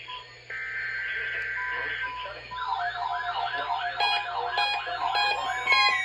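A NOAA Weather Radio broadcast's digital alert header sounds as a buzzy burst of data tones. About two and a half seconds in, several weather alert radios go off together for the required weekly test, with warbling siren tones and pulsed beeping on top of one another.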